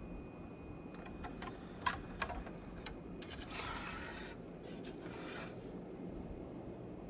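Handling noise from a 1/18-scale model car in its black plastic base: a few sharp plastic clicks, the two loudest close together, then two short stretches of rubbing and scraping as a hand moves the car.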